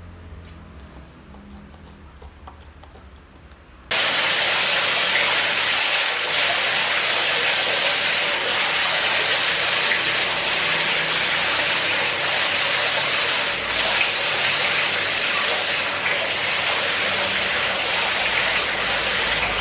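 Gravity-feed air spray gun spraying paint: a loud, steady hiss of compressed air and atomised paint that starts abruptly about four seconds in, after a quiet stretch, with only brief small dips as the trigger eases.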